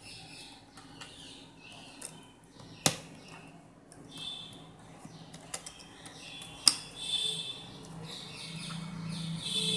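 Plastic phone parts of an Infinix Hot S3 smartphone being handled and pressed into place during reassembly: light rustling and scraping, with two sharp clicks about three seconds in and again near seven seconds.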